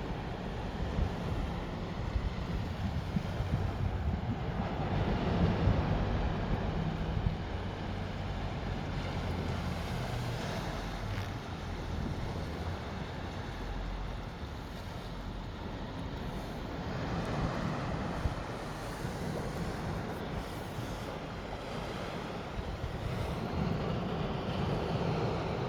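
Gentle sea waves washing in and drawing back over the shore, swelling louder a few times, with wind rumbling on the microphone.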